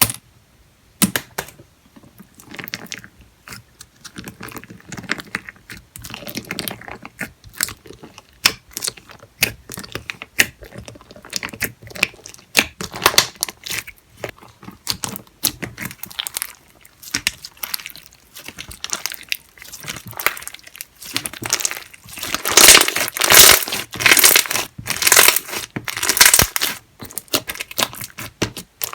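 Slime squished and pressed by hand, giving irregular crackling and popping clicks. Louder, denser crackling comes in the last third.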